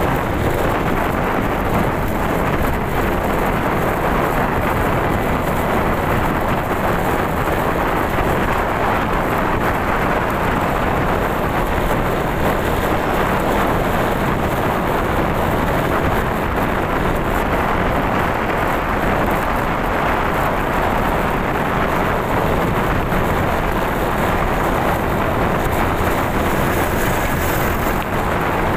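Steady rush of wind and road noise from a motorcycle underway, with its engine running beneath it.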